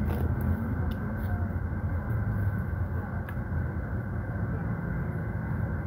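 Steady low rumbling background noise with a few faint clicks, one near the start and one about three seconds in.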